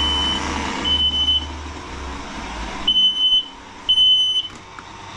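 An electronic beeper giving clear, high half-second beeps about once a second, over a low steady rumble that dies away about halfway through.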